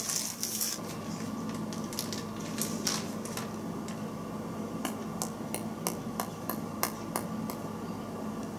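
Plastic zip-top bag crinkling as a feather-fletched arrow is drawn out of it, then a run of light clicks and taps as the arrows are handled, over a steady low hum.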